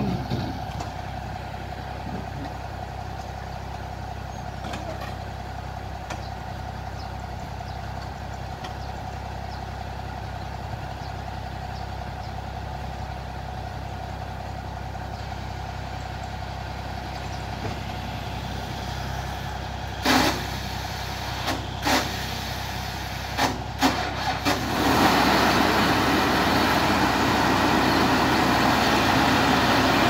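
Heavy vehicle's engine idling steadily, with a few short sharp bursts of noise about 20 to 24 seconds in, then the engine running much louder from about 25 seconds on.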